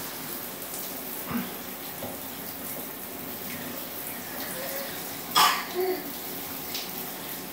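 Shower spray running steadily onto a small child in a tiled stall, a continuous hiss of water. About five seconds in comes one brief, loud burst of noise.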